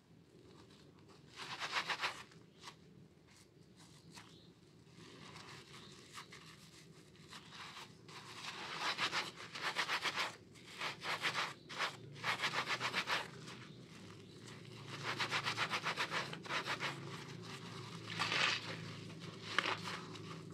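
Soaked, soap-lathered sponges squeezed and wrung by hand in sudsy water: wet squelching of foam and water, in several bursts of a second or two with quieter spells between.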